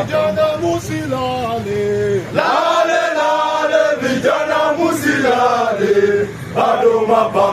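A group of men chanting in song, with a melody that steps down through held notes and more voices joining about a third of the way in.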